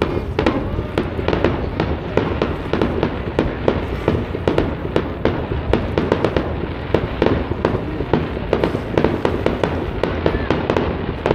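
Aerial fireworks display: a rapid, continuous string of shell bursts and crackling pops, several a second.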